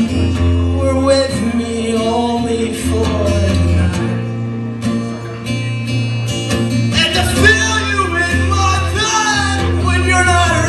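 Live acoustic band music: guitars over steady low bass notes, with a bending melody line rising above them in two phrases.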